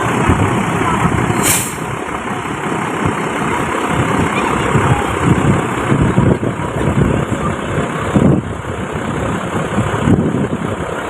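Bus engine running close by, with a short, sharp hiss of air about a second and a half in.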